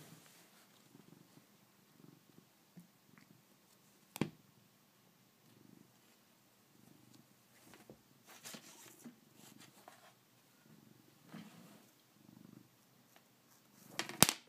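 Domestic cat purring close up, a soft low pulsing in the rhythm of its breathing. A sharp knock comes about four seconds in and a cluster of louder knocks near the end.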